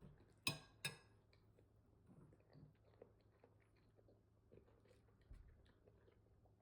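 Two sharp ringing clinks of utensils against a dish close together, then faint chewing.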